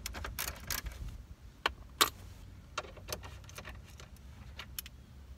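Scattered clicks and light taps of a nut driver and fingers on the factory stereo's mounting screws and the plastic dash trim, irregular, with the sharpest clicks about two seconds in.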